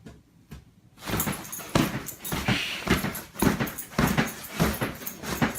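An animal's noises, starting about a second in and repeating about twice a second.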